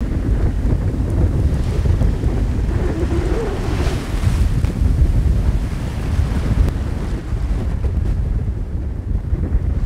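Wind buffeting the microphone over the wash of sea waves around a sailing yacht, a dense rushing noise that gusts up and down.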